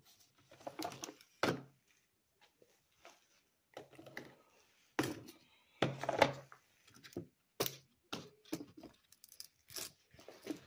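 Handling noise from a plastic toy Batmobile and a taped cardboard papier-mâché model being picked up, knocked together and set down: a series of irregular knocks and thunks with some crinkling, the loudest about a second and a half in and again around five and six seconds.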